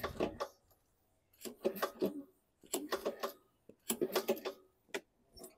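Toro Recycler's Kohler 149cc mower engine running roughly with a heavy banging: loud, irregular bursts of clatter about once a second. The owner suspects it could be a connecting rod.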